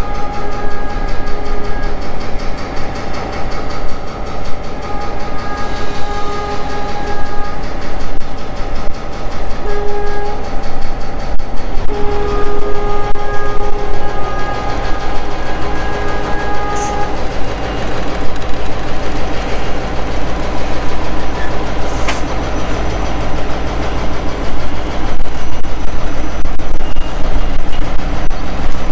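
Diesel freight locomotive's multi-tone air horn sounds two long blasts, a short one and a final longer blast, the grade-crossing signal, over the engine's low rumble. After the horn stops, the hopper cars keep rolling past with a steady rumble and clatter on the rails.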